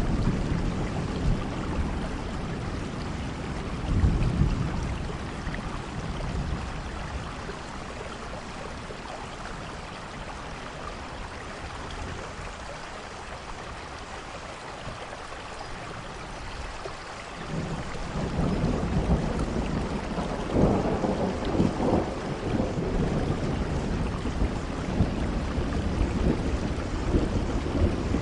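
Steady rain with thunder rumbling: a brief low rumble about four seconds in, a quieter stretch of rain alone, then a longer roll of thunder that builds a little past halfway and keeps rumbling.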